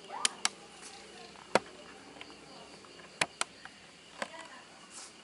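Six sharp, short clicks or taps at irregular intervals, two of them in quick pairs, over a faint steady high-pitched chirring of night insects.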